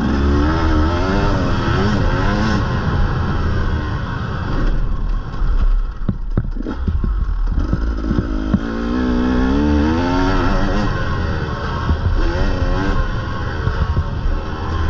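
Motocross dirt bike engine revving hard and backing off again and again, its pitch climbing through each gear and dropping at the corners. Clattering knocks from the bike over bumps come through in the middle.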